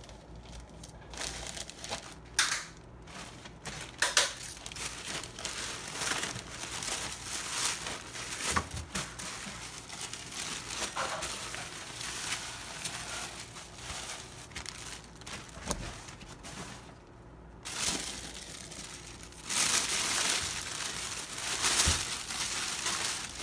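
Sheet of floral wrapping paper and a plastic zip-top bag crinkling and rustling as they are handled, with many sharp crackles, louder for the last few seconds.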